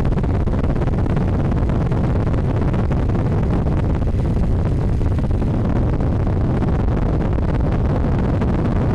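Steady, unbroken drone of the camera aircraft heard from on board, mixed with wind rush on the microphone.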